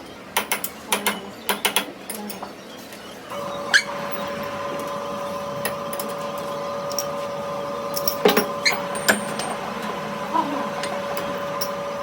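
A quick run of sharp metal clicks and knocks, then a machine starts about three seconds in and runs with a steady hum, with a few clinks over it.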